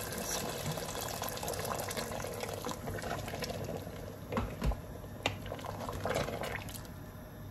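Hot, freshly boiled water is poured into a cooking pot of mutton and potatoes in a steady splashing pour that stops about six and a half seconds in. A few short knocks come shortly before the pour ends.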